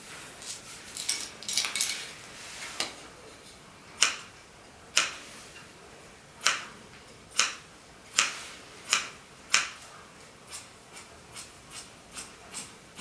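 Fabric scissors snipping through sequined fabric: a run of sharp cuts about one a second from a third of the way in, then lighter, quicker snips near the end. The fabric rustles as it is handled at the start.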